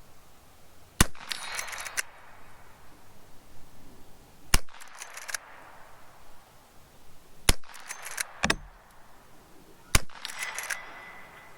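Four rifle shots from a Marlin 1894 lever-action firing .38 Special rounds, spaced about two and a half to three and a half seconds apart. Each shot is followed within a second by a quick run of metallic clacks as the lever is worked to eject the case and chamber the next round.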